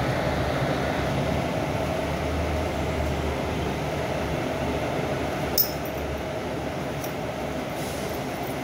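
Cabin noise inside a moving Mercedes-Benz O500U city bus with a Marcopolo Torino body: a steady low engine drone with road noise, easing slightly after about three seconds. A sharp clink of a fitting rattling comes about five and a half seconds in, and fainter ticks follow.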